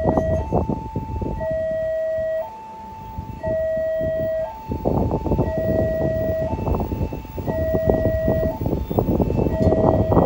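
Level-crossing warning alarm sounding an electronic two-tone pattern, the pitch switching between a lower and a higher note about once a second, as a train approaches. Rough rushing noise comes and goes over it and eases off for a second about two and a half seconds in.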